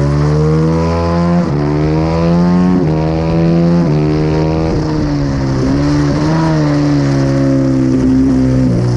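Honda CRF450RR single-cylinder four-stroke engine heard onboard, accelerating hard through three upshifts: the pitch climbs and drops sharply at each shift about a second apart. In the second half the engine note falls as the bike slows, with a couple of short rises.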